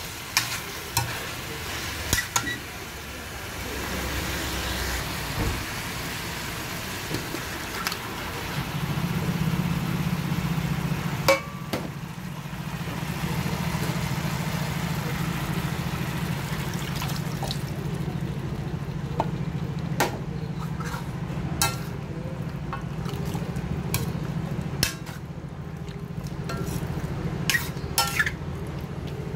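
Chicken and vegetables sizzling in a stainless steel wok while a metal ladle stirs, with sharp clicks and scrapes of the ladle against the pan. A steady low hum comes in about a third of the way through, and the sizzle fades in the second half, leaving mostly the ladle clicks.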